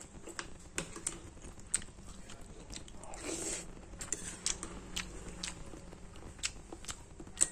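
A person chewing a mouthful of rice and fish soup, with scattered sharp clicks from the metal spoon tapping and scraping the ceramic bowl.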